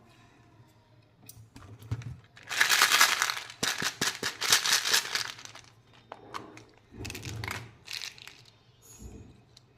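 Plastic candy wrapper of a Kinder Joy surprise egg crinkling as it is handled and opened: a loud stretch of about three seconds in the middle, then a few shorter crinkles.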